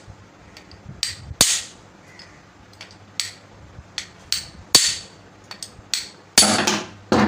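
Hammer striking a chisel set on a ceiling fan motor's bearing, knocking the worn, loose bearing out of the motor housing. Sharp metallic blows at uneven intervals, with the loudest few near the end.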